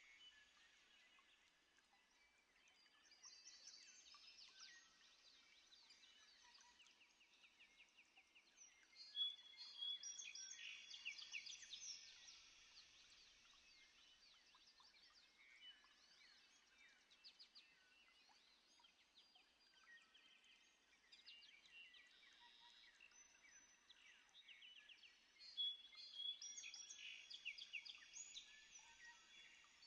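Faint chorus of small birds chirping and trilling, with two louder bouts of song, one about a third of the way in and one near the end.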